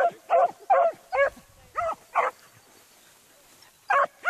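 Beagle hound baying on a rabbit's scent line in short, high yelping barks, about six in quick succession, then a pause of more than a second and two more near the end.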